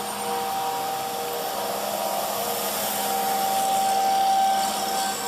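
A leaf-collection vacuum truck's blower running as it passes, its noise swelling to a peak about four seconds in. Under it runs the steady tone of an outdoor warning siren sounding for its monthly test.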